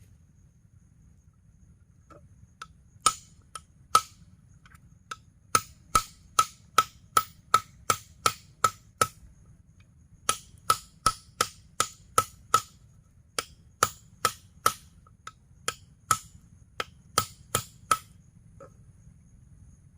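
Repeated sharp chopping strikes, up to about three a second, in runs that begin about three seconds in and stop shortly before the end, with a brief pause midway. Each strike has a short ring. A faint, steady high insect whine sits underneath.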